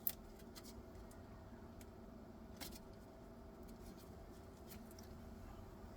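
A few faint, sharp clicks and ticks of small-parts handling, the clearest right at the start and another about two and a half seconds in, over a low steady hum.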